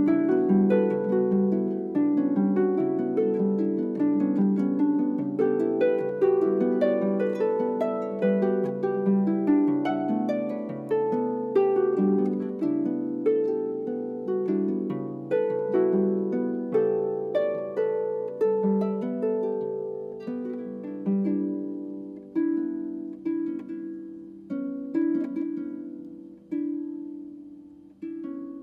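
Solo harp playing a contemporary piece: a dense flow of plucked notes in the middle range, which thins out after about twenty seconds into separate plucked notes and chords left to ring and die away.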